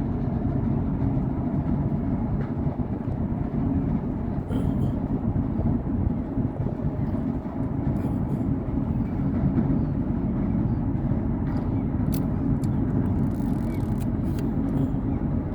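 Steady low rumble and vibration of the Stena Germanica car ferry's hull and engines, heard from on board.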